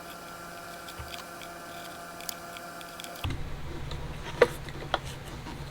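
Masking tape being trimmed and pressed onto a plastic coolant overflow tank: faint ticking, then a couple of sharp clicks in the second half.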